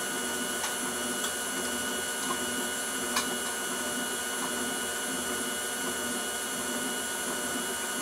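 KitchenAid tilt-head stand mixer running steadily at medium speed, its beater mixing chocolate cake batter in a stainless steel bowl.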